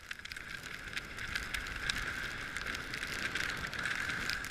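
Skis scraping and hissing over packed snow while carving down a slope, with many scattered sharp clicks from the edges; it grows louder over the first second and then holds steady.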